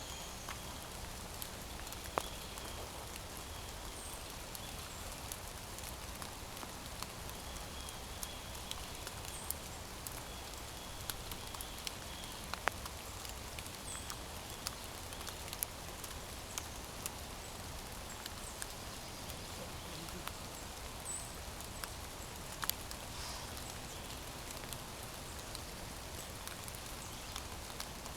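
Quiet woodland ambience: a steady hiss with scattered light ticks and a few faint, high, short chirps.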